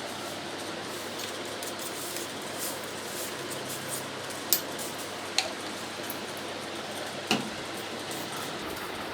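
Samsung 7.2 kg washing machine running with a steady wash noise, broken by three sharp clicks in the second half.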